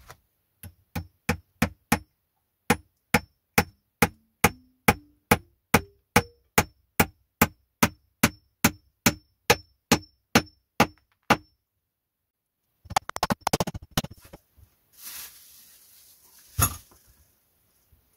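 Hammer driving a nail into a wooden log, about three sharp blows a second for roughly eleven seconds, with a ringing tone after the blows that climbs in pitch partway through. Then a short clatter and a single thump as the wood is handled.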